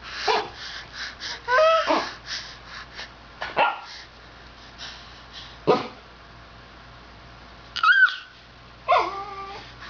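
A dog giving a series of short whines and yips, about five spread over ten seconds, with quieter huffing breaths between them.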